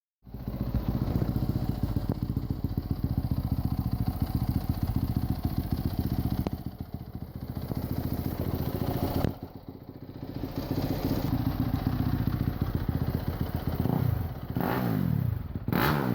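Motorcycle engine running through its exhaust, idling steadily, with a brief dip in level about nine seconds in. Near the end the throttle is blipped and the pitch rises.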